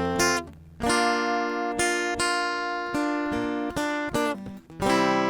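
Acoustic guitar playing, with notes and chords plucked one after another and left to ring. The playing stops briefly about half a second in and again just after four seconds.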